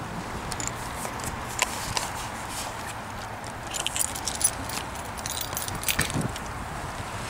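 Scattered light metallic jingling and sharp clicks, in small clusters about one and a half, four and six seconds in, from things carried as a person moves over shoreline rocks. Under them runs a steady rushing hiss.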